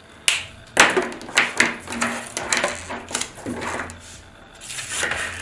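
An irregular string of sharp clicks, taps and rustles from drafting tools and pattern paper being handled on a work table, with a faint low hum underneath.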